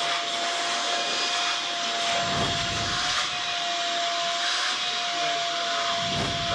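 A vacuum motor running steadily: a strong rush of air under a single steady whine, whose pitch wavers slightly about halfway through.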